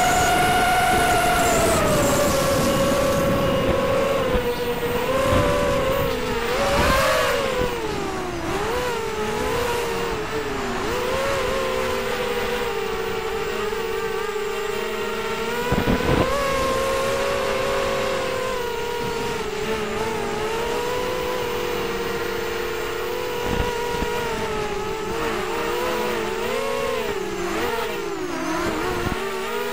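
ZMR250 racing quadcopter's brushless motors and propellers whining, heard from its own onboard camera, the pitch wavering up and down with the throttle and dropping lower about two seconds in. Wind rushes over the microphone underneath.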